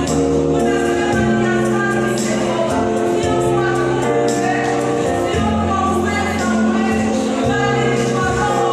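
Gospel praise-and-worship music: a group of voices singing over a bass line, with percussion keeping a steady beat.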